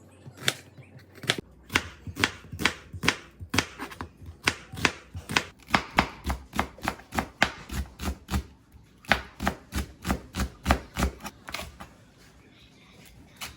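Kitchen knife chopping on a cutting board, a steady run of about two to three strokes a second that stops about two seconds before the end.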